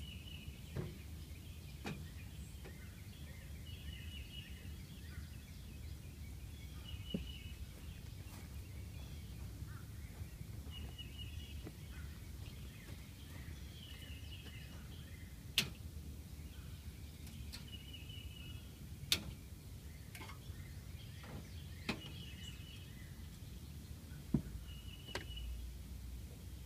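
Faint outdoor ambience: a bird repeats a short chirping phrase every two or three seconds over a low steady rumble. A handful of sharp clicks are scattered through it.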